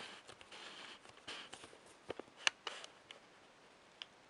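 Faint crinkling of a foil anti-static shielding bag being handled, with scattered small clicks and taps from the circuit board and fingers. The sharpest click comes about two and a half seconds in.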